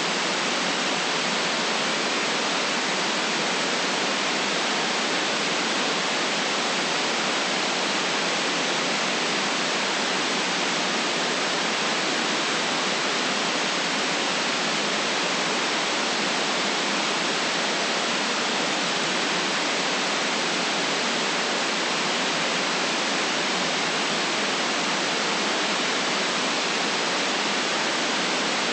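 White-noise sleep track: a steady, unchanging hiss with no deep bass, holding one even level throughout.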